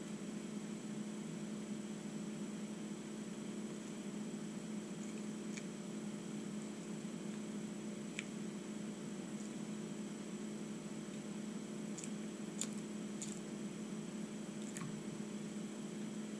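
Steady low electrical hum, with a few faint soft clicks and squishy mouth noises from a man chewing a breadstick.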